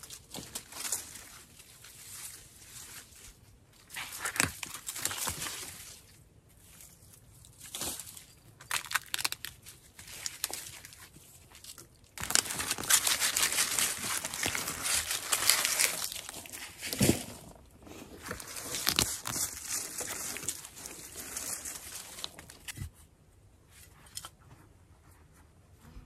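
Irregular rustling, crunching and scraping of plants and soil, as from digging up potato plants. It comes in short spells, then a long continuous stretch in the middle, and dies down near the end.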